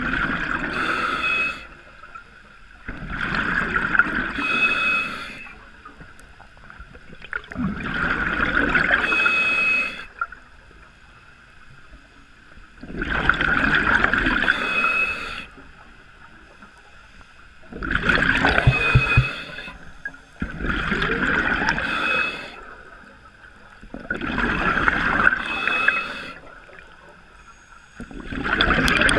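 Scuba diver breathing through a regulator underwater: bursts of hissing and bubbling, each about two seconds long, every three to five seconds.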